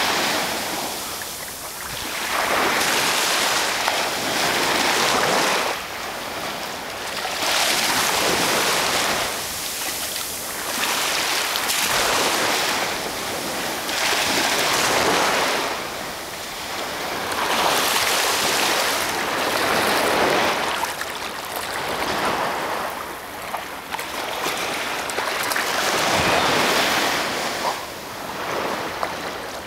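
Small sea waves washing and breaking in shallow water, swelling and fading about every two to three seconds.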